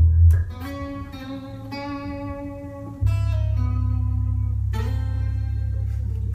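Acoustic guitar and bass guitar playing together as a duo instrumental. Ringing guitar chords are picked every second or so, and a deep bass note comes in about three seconds in and holds underneath.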